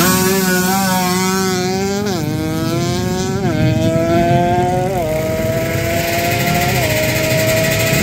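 Racing motorcycle accelerating hard down a drag strip. Its engine note climbs steadily and drops sharply at each of four upshifts.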